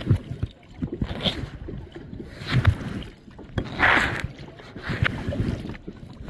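Kayak paddle strokes, the blades dipping and splashing into the water about once every second and a quarter, the loudest splash near the middle, with low knocks in between.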